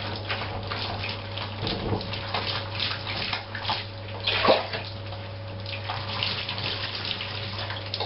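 Rinse water poured from a spouted jug over a small wet poodle, splashing unevenly off its coat into the bathtub, with stronger splashes here and there.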